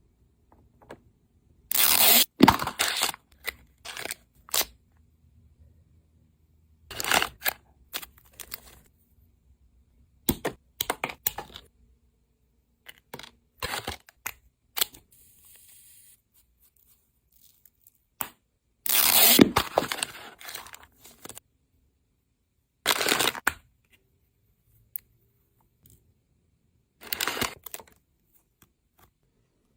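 Packaging being torn and crinkled open in short bursts, with quiet gaps between them.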